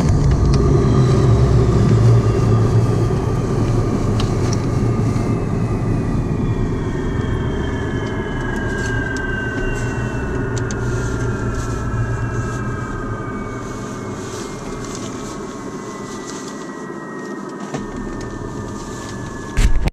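Antonov An-24's Ivchenko AI-24 turboprop engines winding down after shutdown, heard from inside the cabin: several whining tones slide slowly downward in pitch over a rumble that gradually fades.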